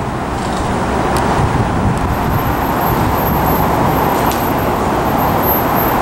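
Steady low rumble of distant vehicle noise, swelling slightly in the first second.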